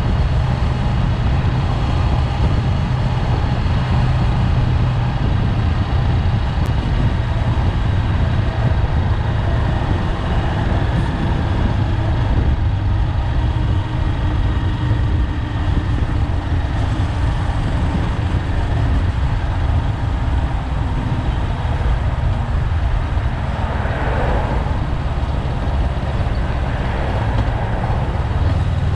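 Honda 400X motorcycle's parallel-twin engine running under way, a steady low rumble, with a brief louder swell near the end.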